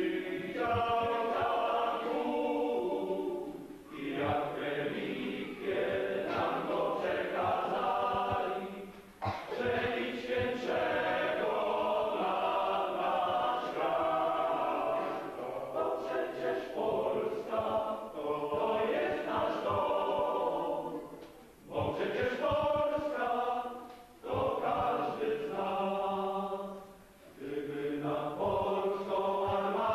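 A group of voices singing a hymn together in long phrases, with brief breaths between lines, in a reverberant church.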